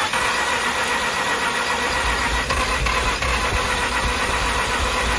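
The 2005 Mazda RX-8's rotary engine being cranked over by the starter for about five seconds without catching: a crank-no-start. It starts and stops abruptly, with a steady whine running through it.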